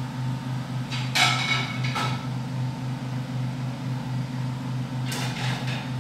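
Steady low hum of a power generator with a slight regular pulse. Over it, plates clink about a second in and again at two seconds, with a short clatter of dishes near the end.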